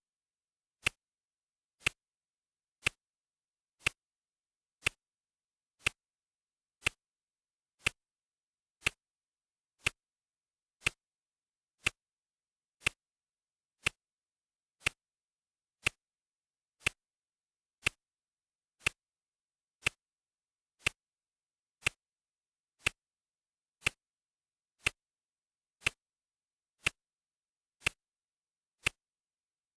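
Clock ticking steadily, one tick a second, each tick a sharp even click.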